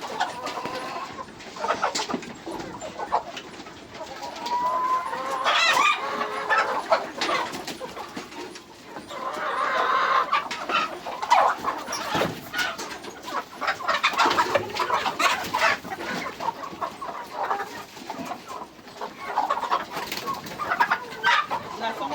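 A flock of kienyeji chickens clucking, with many short calls overlapping one another.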